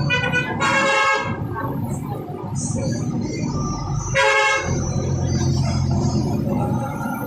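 Vehicle horns honking in short toots: two close together near the start and one more about four seconds in, over a steady engine rumble.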